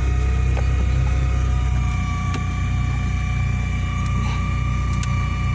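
Car audio system noise through the speakers: a steady low hum with a thin high whine, one fainter tone rising slowly in pitch over the first couple of seconds. It is interference picked up by an RCA cable whose insulation was cut by the seat latch and touches the car's metal, heard with the engine running.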